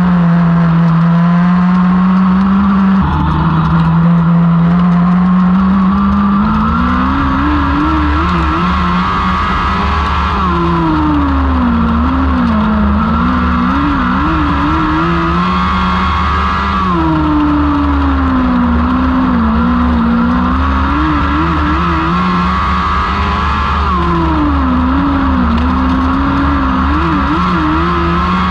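Lightning sprint cars' 1000cc engines running hard. The engine pitch holds steady for the first few seconds, then rises and falls over and over, about every seven seconds, with more than one engine heard at once.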